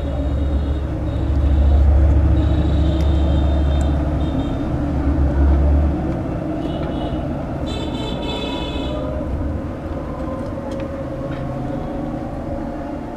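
Low rumble of a passing vehicle engine over background traffic noise, swelling over the first few seconds and then easing to a steady hum. About eight seconds in there is a brief high tone with overtones.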